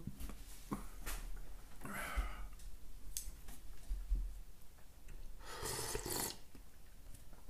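A person slurping ramen broth from a bowl: a short slurp about two seconds in and a longer one near the end.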